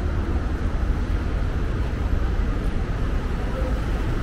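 Steady city traffic noise, a continuous low rumble of cars and trucks on a busy road.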